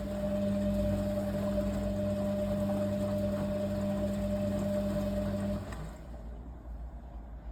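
Kunft washing machine running through its final rinse with a steady mechanical hum, which cuts off about five and a half seconds in.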